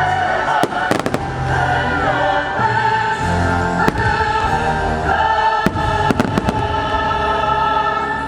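Fireworks shells bursting in sharp bangs, a cluster about a second in and several more from about four to six and a half seconds in, over loud choral music from the show's soundtrack.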